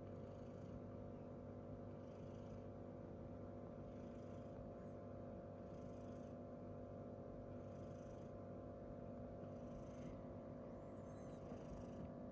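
Long-haired tabby cat purring faintly while its chin and cheek are scratched, with a soft rasp recurring about every two seconds, over a steady hum.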